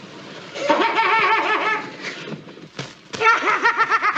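High, rapid cackling laughter in two bursts on an old film soundtrack, with a short thump between them.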